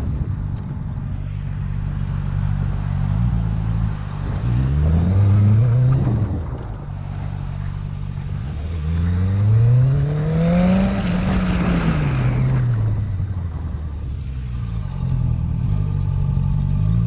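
Motorcycle engine heard from the rider's own bike: running low and steady, then revving up twice, once briefly about four seconds in and again in a longer rise in the middle, its pitch climbing and then falling away as the throttle closes, before it settles back to a low steady run.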